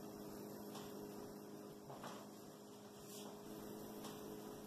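A steady low electrical hum, with a few faint ticks.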